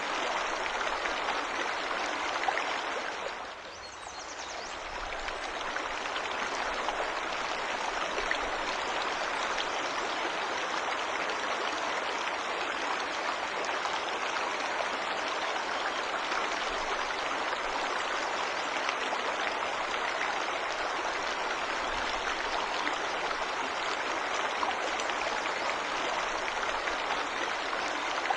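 Waterfall rushing steadily, with a brief dip in level about four seconds in.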